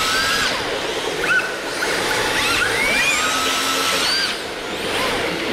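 Electric motors of RC drift cars whining, the pitch sweeping up and falling back several times over a steady hiss.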